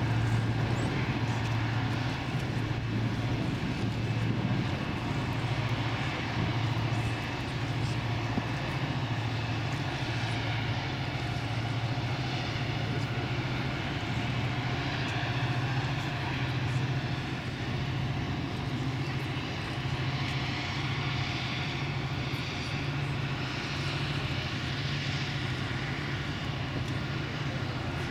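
Towboat's diesel engines droning steadily as they labor to push a heavy barge tow upstream, a constant low hum with a hiss above it.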